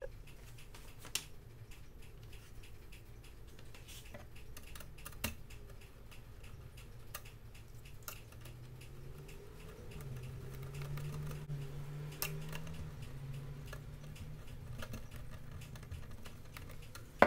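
Small, irregular clicks and taps of a screwdriver and wire ends being handled while wires are fastened into a switching power supply's screw terminal block, over a faint low hum.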